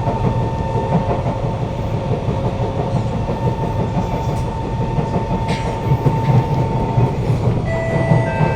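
Kawasaki C151 metro train running, heard from inside the car: its GTO-VVVF inverter and traction motors give a steady whine over the wheel-and-rail rumble. Near the end new, higher motor tones join in.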